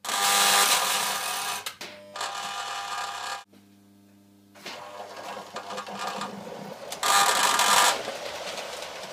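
Lionel operating horse corral buzzing and rattling, its vibrating platform shaking the toy horses along the chute, over a steady electric hum. The rattle stops for about a second near the middle and is loudest near the start and again about seven seconds in.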